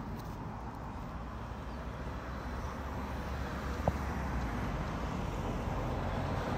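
Road traffic on a busy roundabout: cars driving past, with the low rumble of an approaching lorry building toward the end. A single sharp click about four seconds in.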